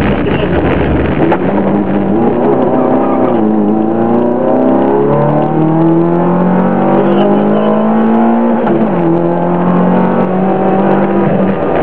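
Rally car engine heard from inside the cabin at full throttle, pitch climbing through the revs and dropping sharply twice at gear changes, about three and a half and eight and a half seconds in. For the first few seconds loose gravel crackles and rattles under the car.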